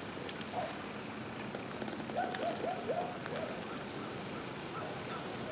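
A bird calling a quick run of four short notes about two seconds in, with a few fainter high notes. A couple of small sharp clicks near the start, over a steady faint outdoor hiss.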